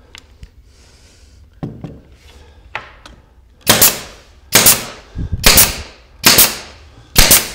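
Pneumatic narrow-crown stapler firing five times, about once a second from midway on, each shot a sharp bang with a short tail, driving 3/4-inch staples through a cabinet's thin back panel into its side. A couple of faint clicks come before the first shot.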